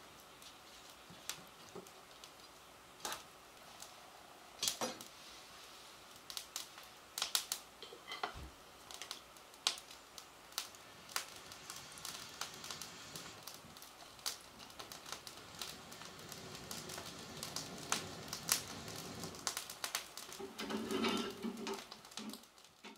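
Firewood burning in an irori hearth, crackling with irregular sharp pops and snaps over a soft steady background.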